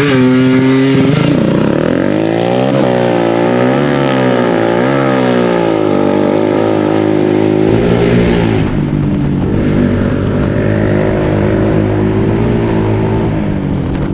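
ATV (quad) engine revving up and down as it is ridden, its pitch rising and falling repeatedly with the throttle, then running steadier at a lower pitch about eight seconds in.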